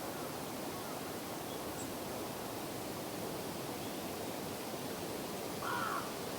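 Steady outdoor background hiss, with one brief sound near the end.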